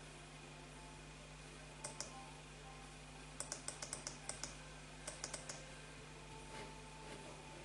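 Laptop keyboard keys tapped in short runs: two keystrokes about two seconds in, a quick run of about eight, then about five more, over a faint steady hum.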